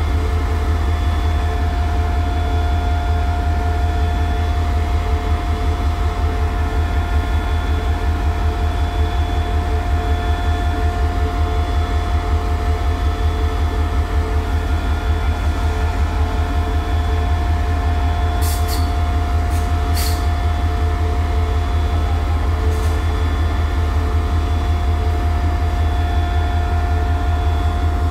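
Diesel engine of an SRT CSY-class diesel-electric locomotive running steadily: a deep, even rumble with a constant whine over it. A few sharp clicks come about two-thirds of the way through.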